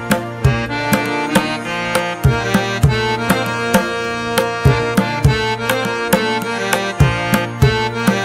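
Instrumental background music: a steady drum beat of about two strokes a second under a sustained melody.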